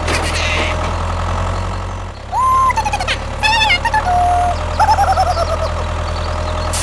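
Tractor engine running steadily with a low drone. Over it come a few whistle-like calls that hold a note and then glide down in pitch, starting about two seconds in and again near five seconds.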